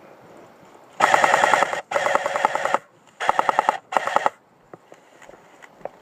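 Airsoft gun firing on full auto in four short bursts of rapid, evenly spaced shots, the first two close together and the last one brief, then a few scattered single faint clicks.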